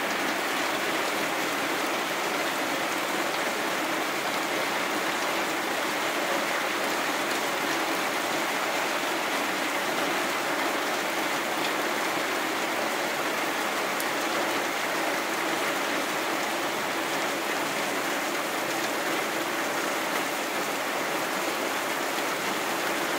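Heavy rain pouring down steadily, an even, unbroken hiss of rainfall.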